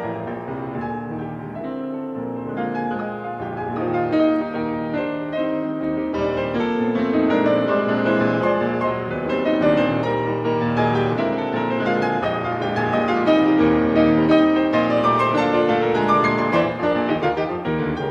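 Solo piano playing dense, accented chordal passagework in a virtuoso waltz paraphrase, steady and full throughout.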